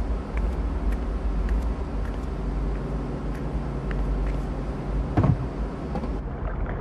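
A low, steady rumble with faint scattered ticks over it, and a brief louder burst about five seconds in.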